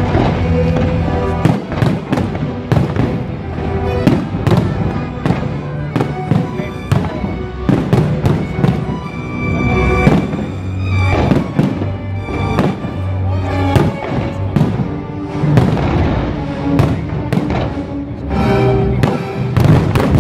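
Fireworks bursting in quick succession, a dense run of sharp bangs and crackles, over orchestral music.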